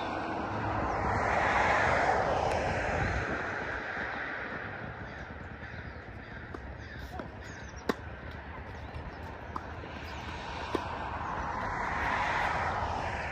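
Passing traffic: a broad vehicle rush that swells and fades about two seconds in, then builds again near the end, with three single sharp knocks in the quieter stretch between.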